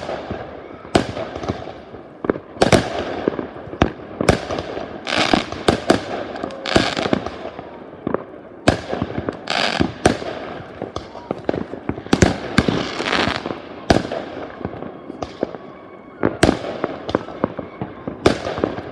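New Year's fireworks going off in a continuous irregular barrage: many sharp bangs, some followed by a fading crackle.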